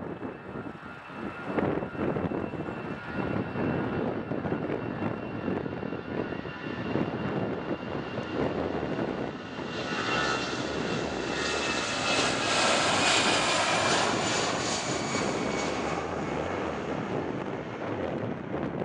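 Boeing 777-300ER's twin GE90 turbofans running at taxi power: a steady jet rumble with a thin high whine. For about six seconds around the middle it grows louder and hissier as the aircraft turns its engine exhausts toward the microphone.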